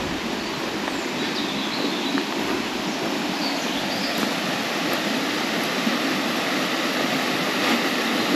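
Steady rushing of a river's running water, with a few faint bird chirps.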